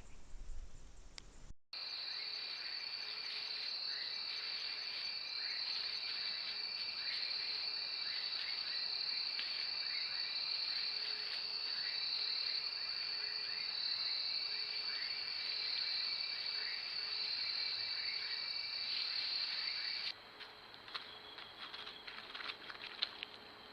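Chorus of insects trilling steadily in a high pitch, with a pulsing rhythm. It starts abruptly about two seconds in and cuts off about twenty seconds in, leaving a fainter background with a few faint clicks.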